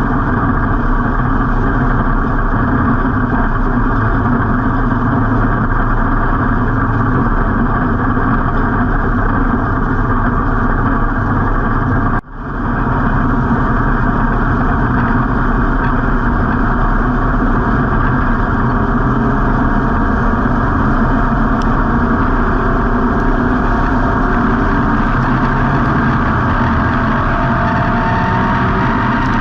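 Street stock race car's V8 engine running loud and steady, heard from on board inside the car. About twelve seconds in the sound drops out sharply for a moment, then comes straight back.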